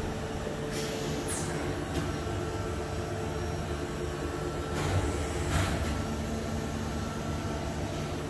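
CNC vertical machining center running: a steady mechanical hum with a faint whine from about two seconds in to about seven, and a few short hissing bursts about a second in and again around five seconds in.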